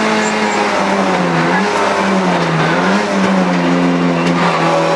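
Rally car's engine heard from inside the cabin, running hard with its pitch dipping briefly twice in the first three seconds, then holding steady.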